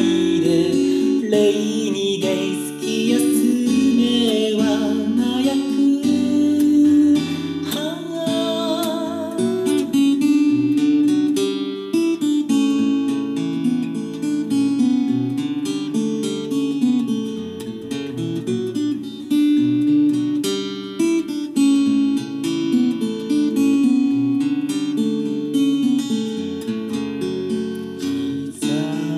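Acoustic-electric guitar playing a song, with a voice singing over it through a TC-Helicon Play Acoustic preset for about the first ten seconds. After that the guitar carries on alone.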